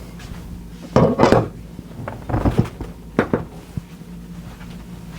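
A few short, sharp knocks and clacks: the loudest about a second in, more around two and a half and three seconds in, over a low steady hum.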